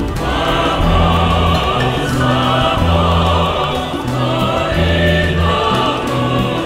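Mixed choir singing held chords with an instrumental ensemble, over a bass line whose low notes change about once a second.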